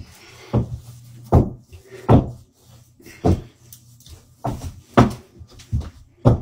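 About ten dull thumps and knocks, irregularly spaced half a second to a second apart: boots stomping on a hard floor while dancing.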